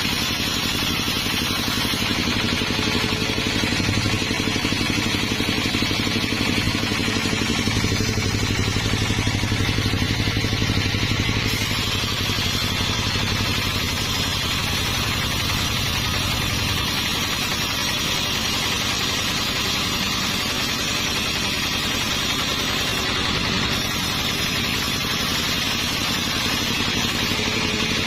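Sawmill machinery running steadily with a continuous engine-like hum, a little louder from about 4 to 11 seconds in.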